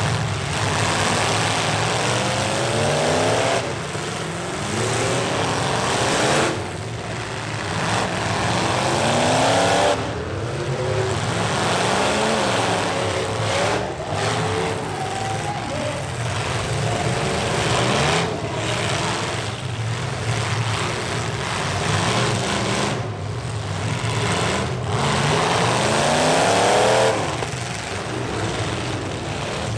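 Several stock trucks' engines revving hard at once, their pitch climbing and falling over and over as the drivers floor it, back off and floor it again.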